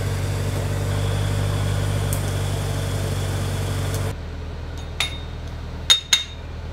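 Steady hum and hiss of a DC TIG arc held on a copper block, fed by a Lincoln SA-200 engine-driven welder under load. The hum cuts off suddenly about four seconds in. Three light metal clinks follow as a purge plug is pushed into stainless sanitary tubing.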